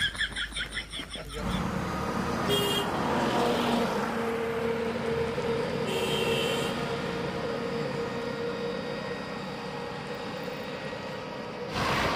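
Road traffic: vehicles running past with a steady engine hum, a horn beeping briefly twice, and a car swishing past near the end.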